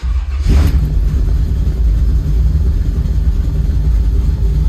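Small-block Chevy V8 with Holley Sniper EFI fires up on a cold start with no foot on the throttle, flares briefly about half a second in, then settles into a steady, loud rumbling idle around 800 rpm, heard from inside the cabin.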